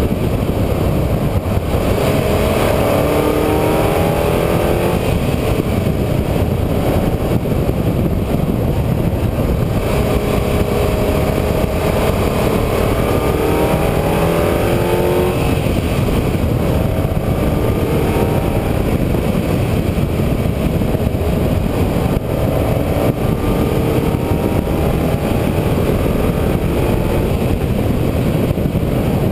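A vehicle's engine pulling hard again and again, its pitch climbing in about four long rises and dropping back between them, over loud, steady wind and road noise.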